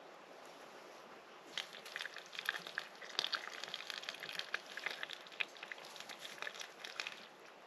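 Dense crackling and popping from the campfire cooking, starting about a second and a half in and stopping shortly before the end.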